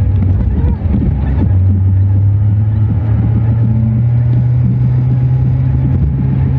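Car driving along a road: a steady low engine and road drone.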